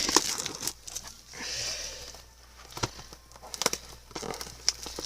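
Rustling and crinkling of foil-wrapped trading card packs and their cardboard box being handled, with scattered light clicks and taps.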